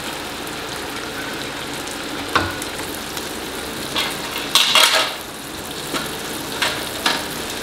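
Seekh kebabs frying in a karahi of tomato masala cooked until the ghee has separated: a steady sizzle as they are laid into the hot pan one by one. A few short knocks against the pan, the loudest a little under five seconds in.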